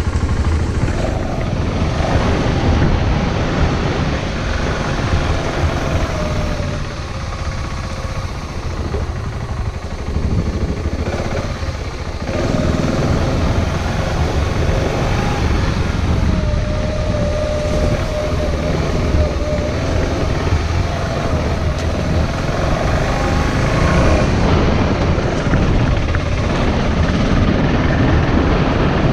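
Wind buffeting the microphone and the rumble of tyres over the ground while riding a bicycle, a steady loud rushing with a deep low rumble.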